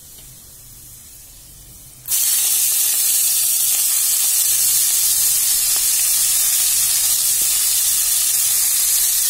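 Chopped fenugreek (methi) leaves going into hot oil with fried garlic in a kadhai: a faint sizzle for about two seconds, then a sudden loud, steady sizzle as the wet leaves hit the oil.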